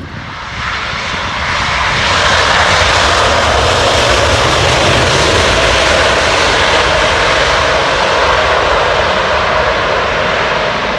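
Airbus A350-1000's Rolls-Royce Trent XWB jet engines running loud, swelling over the first couple of seconds and then holding a steady roar that eases slightly near the end.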